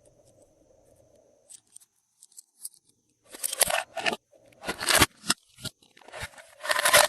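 Glossy slime being squished and pressed by hand: a few faint clicks, then from about three seconds in a run of five or six loud squishes.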